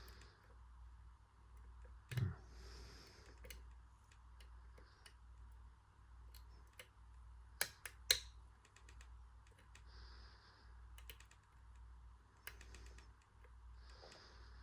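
Small, irregular clicks of lock picks working the pins of a six-pin CISA dimple lock, with a few louder clicks about two seconds in and around eight seconds in.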